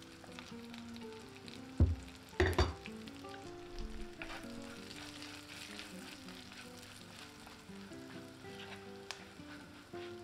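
Chopped walnuts and sun-dried tomatoes sizzling in butter and oil in a frying pan, stirred with a wooden spoon, with fresh oil just added. Two knocks come about two seconds in.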